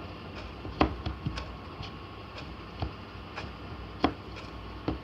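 Homemade slime being squeezed and worked by hand, making irregular sharp clicks and pops; the loudest comes about a second in.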